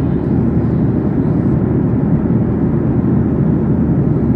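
Steady cabin noise of a jet airliner in cruise: an even, low rush of engine and airflow noise heard inside the cabin by the window.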